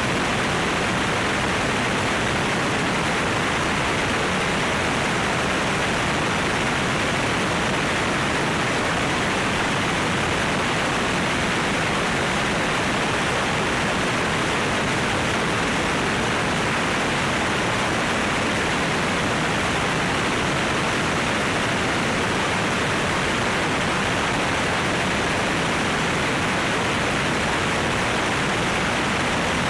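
Steady rushing wind noise from the airflow over a camera mounted outside a light airplane in flight, with no distinct engine tone.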